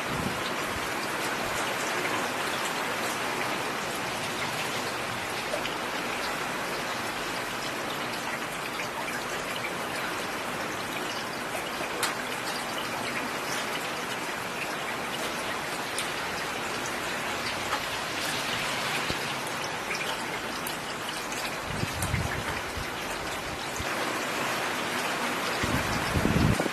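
Steady rain falling on a road, a constant hiss with scattered sharper drop ticks. A low rumble swells briefly twice, about 22 seconds in and again near the end.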